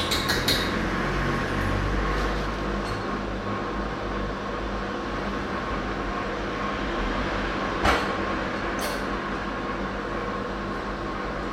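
Steady mechanical hum of shop kitchen equipment. It carries a few light clicks at the start and one sharp metallic knock about eight seconds in, where a stainless steel syrup pitcher is set down on a metal tray.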